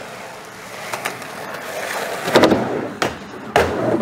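Skateboard wheels rolling on concrete, growing louder toward the middle, then two sharp clacks of the board hitting the ground near the end.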